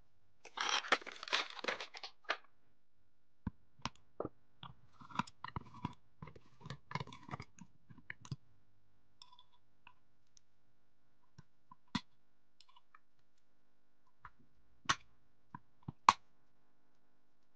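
Plastic packaging of an NVMe SSD crinkling as it is opened, then scattered clicks and taps of M.2 drives and a motherboard heatsink cover being handled and seated, with a sharp click near the end the loudest.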